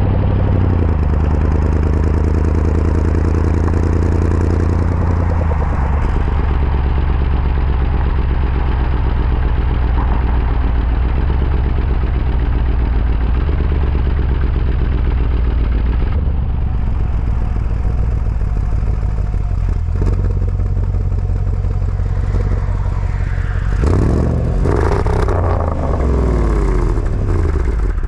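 Jaguar F-Pace SVR's 5.0-litre supercharged V8 idling, heard at its quad tailpipes. The idle steps down to a lower, steady pitch about five seconds in, and near the end there is one short blip of revs.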